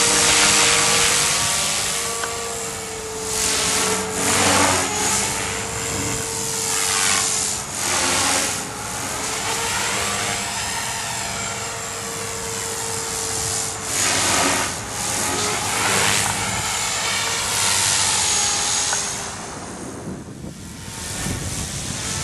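Dragonus II N-Plus RC helicopter in aerobatic flight. Its engine and rotor tone rises and falls, broken by repeated loud whooshes of the rotor blades as it manoeuvres.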